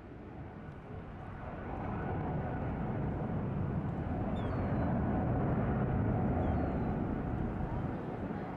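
Boeing 747 four-engine jet climbing out after takeoff, a steady low rumbling jet noise that grows louder over the first couple of seconds, is loudest in the middle and eases slightly near the end.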